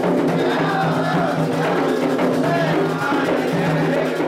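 Candomblé atabaque drums playing a toque for Oxum, with voices singing a cantiga over the drumming. The music keeps going without a break.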